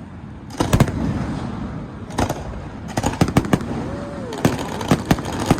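Fireworks bursting overhead: irregular sharp bangs, several in quick succession about three seconds in, over a steady background rumble.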